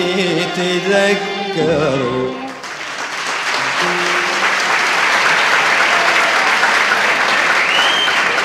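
An Arabic ensemble plays its closing notes, which end about two and a half seconds in, and a live audience then breaks into steady applause.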